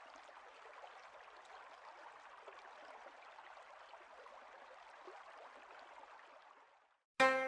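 A faint, even rushing hiss that dies away about seven seconds in. Just before the end, a koto note is plucked sharply and rings on.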